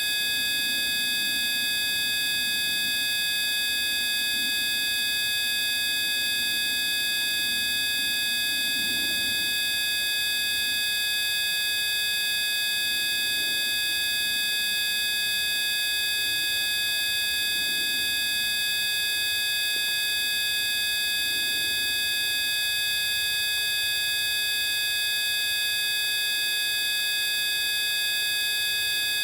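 Steady mix of pure electronic tones at several pitches sounding together, holding completely unchanged throughout.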